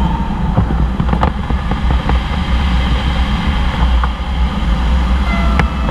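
Steady, loud rush and rumble of airflow around the cockpit canopy of a glider in aerobatic flight, with a few light clicks and knocks.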